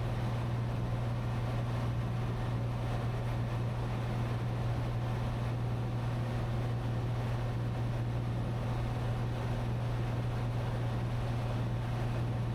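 Steady drone of a Cessna 182T's six-cylinder Lycoming IO-540 engine and propeller in flight, heard inside the cabin, with a strong, even low hum.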